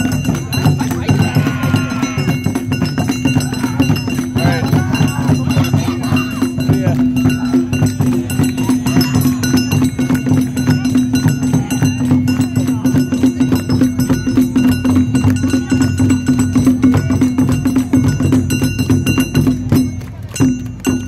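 Awa Odori festival band playing its fast, steady two-beat rhythm, with clanking hand bells and drums over a held low tone, and crowd voices mixed in. The music dies down near the end.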